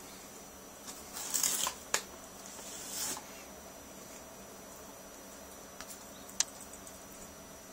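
Blue-crowned conure cracking and chewing a pumpkin seed held in its foot: a couple of short scratchy crunches in the first three seconds and a few sharp clicks of the beak.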